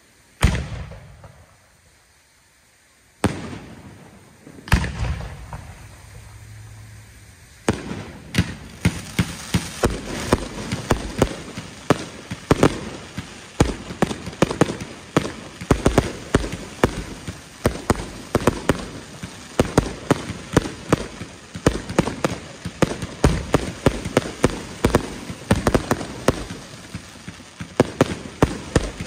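Aerial fireworks going off: three separate bangs in the first five seconds, then from about eight seconds in a dense, continuous crackle of rapid sharp pops as many bursts and crackling effects go off together.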